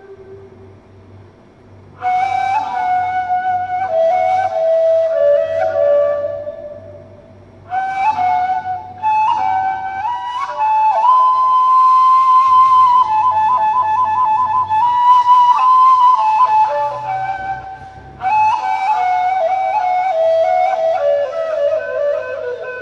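Turkish ney, the end-blown reed flute, playing a slow melody in makam Acemaşiran. It comes in three phrases of held and ornamented notes, starting about two seconds in, near eight seconds and near eighteen seconds, with a short pause for breath between them. The last phrase falls in pitch near the end.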